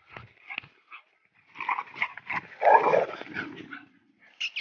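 Rottweiler making a run of short, irregular vocal noises, the loudest about three seconds in.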